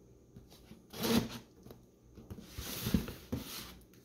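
Folding knife blade scraping and slitting through the clear plastic wrap and tape on a cardboard box, with hands rubbing against the box. A short scratchy cut about a second in, then more scratching and rustling with a few sharp clicks over the last two seconds.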